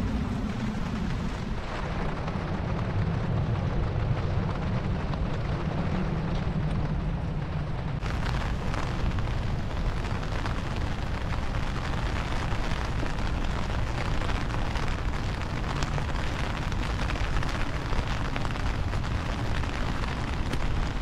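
Steady rain falling on wet pavement, an even hiss and patter, with a low rumble underneath for the first several seconds; the sound changes abruptly about eight seconds in.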